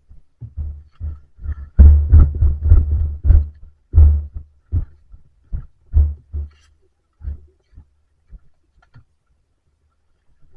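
Irregular low thumps of footfalls and body movement carried through a body-worn camera's microphone, quick and heavy for a second or two, then spacing out and fading.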